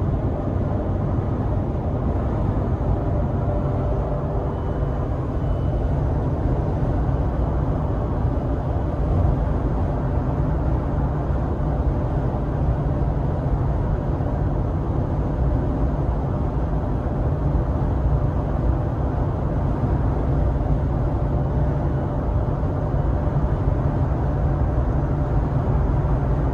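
Steady road noise inside a 2019 Subaru Crosstrek's cabin at highway speed, about 76 mph: an even, low rumble that doesn't change.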